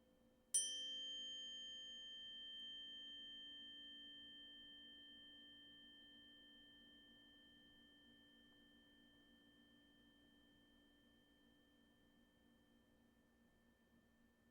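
A metal sound-bath instrument is struck once, about half a second in, and rings with several steady tones, low and high, that fade slowly and evenly.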